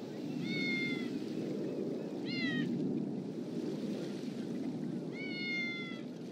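A cat meowing three times: a long, level meow, a short meow that rises and falls, then another long meow, all fairly high-pitched. A steady low rushing noise runs underneath.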